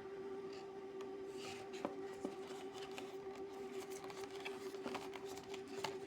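Light clicks and brief rustles of packaging and earbuds being handled, over a steady hum.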